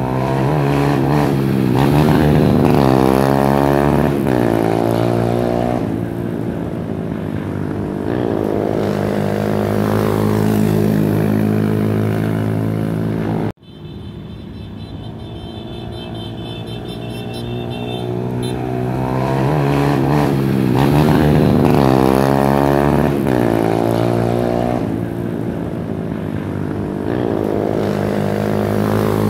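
Motorcycle engines running hard in a street race, revving up and dropping back again and again, their pitch climbing and falling. The sound cuts out abruptly about halfway through, then the revving builds up again.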